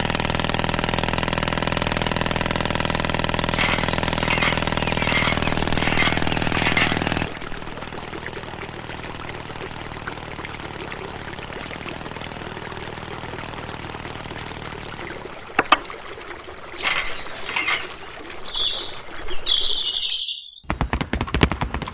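Small diesel water-pump engine running steadily for about seven seconds, then stopping as the sound changes to water pouring and splashing from a pipe into a small pool. A few bird chirps near the end.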